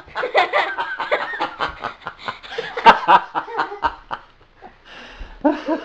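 A person laughing hard in quick breathy bursts, several a second, dying down about four seconds in and starting up again near the end: laughter after being jump-scared.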